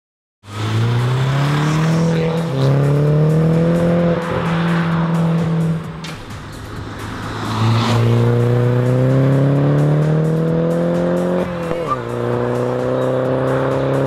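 Car engine and exhaust accelerating hard through the gears. The pitch climbs steadily in each gear and drops back at several upshifts, with a short lift-off about six seconds in before it pulls again.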